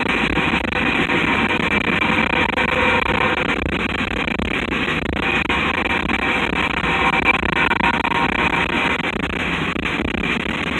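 CSX coal train rolling past, a steady loud rumble of cars on the rails with some steady ringing tones over it.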